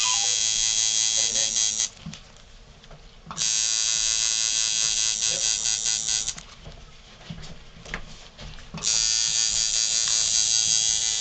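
Electric tattoo machine buzzing as its needle works ink into skin, run in three stretches: it stops about two seconds in, starts again a second and a half later, pauses again past the middle and starts up once more near the end.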